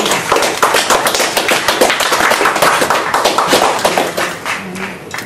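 Audience applauding, a dense run of many hand claps that dies away near the end.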